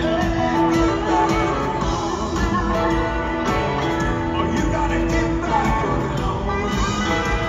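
Live rock band playing: electric guitar lines over bass, drums and keyboards, heard through the PA from the crowd.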